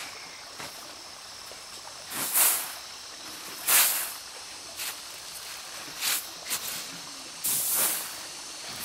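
Large woven winnowing fan swung by hand over threshed rice, making a series of short airy whooshes, the loudest about two and four seconds in. Insects trill faintly and steadily underneath.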